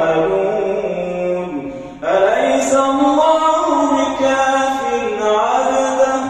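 Imam's melodic Quran recitation during congregational prayer: one man's voice chanting long, held and gliding notes into a microphone, with a short break for breath about two seconds in.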